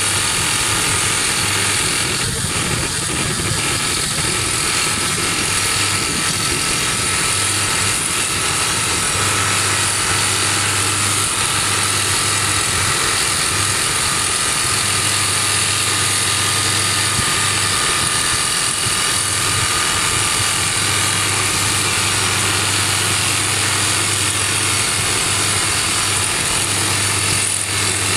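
SOOSAN STD14E top-hammer crawler drill rig drilling rock with its TD45 hydraulic drifter over the running engine. The sound is loud and steady, with a constant low hum under it.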